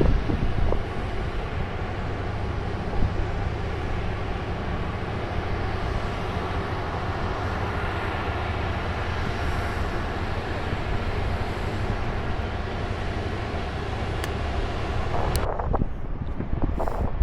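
Steady rumbling roar with no clear rhythm or tone. Near the end its hiss suddenly drops away.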